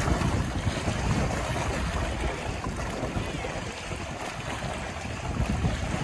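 Small wind-driven waves splashing and washing against shoreline rocks, with gusty wind buffeting the microphone as a low rumble. The gusts ease a little about two-thirds of the way through.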